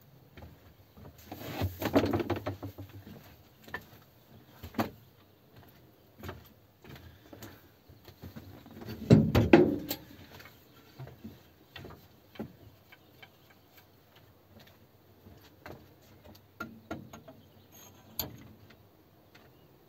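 Handling noise on a boat deck: scattered knocks and clicks from someone moving about close to the microphone, with two louder bursts of rustling and thumps, one about two seconds in and one about nine seconds in.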